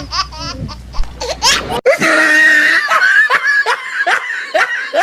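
Laughter after a joke's punchline, an added laugh sound effect: rhythmic ha-ha laughing, which cuts abruptly about two seconds in to a fuller burst of laughter and then goes back to rhythmic laughing.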